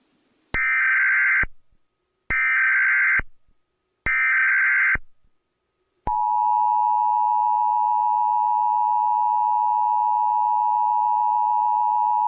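Emergency Alert System test: three one-second bursts of SAME digital header tones, then about six seconds in the steady two-tone EAS attention signal starts and holds.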